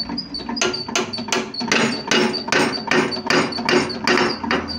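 Hammer blows on steel, about a dozen evenly paced strikes at two to three a second, each ringing briefly, driving the crankpin out of a Honda CD70 crankshaft held in a press jig to split the crank into two halves.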